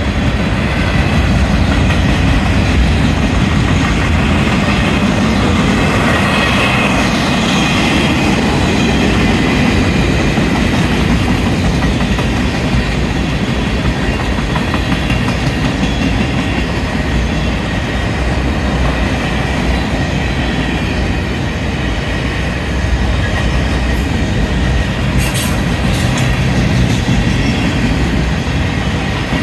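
A freight train of flatcars rolling past steadily: a loud, even rumble of steel wheels on the rails with a clickety-clack over the rail joints, and now and then a faint high squeal from the wheels.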